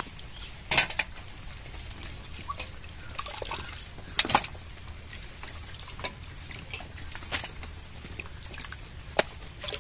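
Water pouring and trickling into a steel bowl as cut fish pieces are rinsed, with four short sharp sounds standing out, the loudest near the start and near the end.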